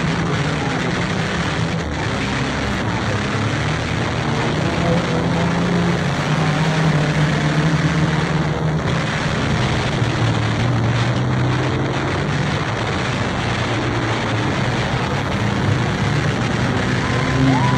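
Banger race car's engine running from inside the car, its note rising and falling over heavy wind and road noise. A short, steady high beep sounds near the end.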